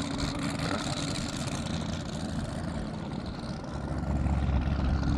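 Low, steady vehicle rumble, swelling about four seconds in.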